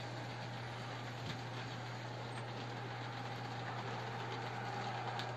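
OO gauge model trains running on the layout: a steady rolling sound of small wheels on the track, with a couple of light clicks.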